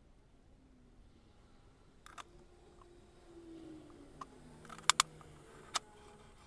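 A few sharp clicks of small parts or hand tools being handled on a workbench, the loudest a quick pair about five seconds in, with a faint low hum in between.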